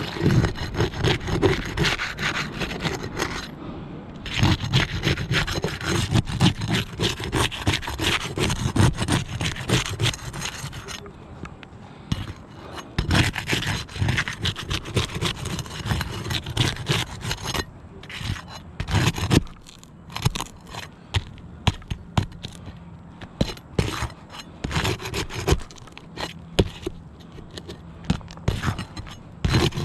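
Gritty scraping and scuffing on an asphalt shingle roof, in long spells with brief pauses, thinning out to scattered scrapes and clicks in the second half.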